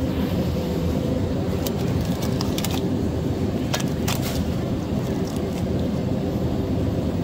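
Steady low hum with a few faint steady tones in it, starting and stopping abruptly. Over it come a few short crinkles, about two to four seconds in, as a vacuum-sealed plastic pork roast package is handled.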